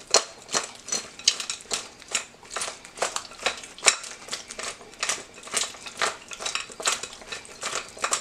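Sauced chicken wings being tossed in a glass mixing bowl: repeated knocks and clatter of the wings against the glass, about two to three a second.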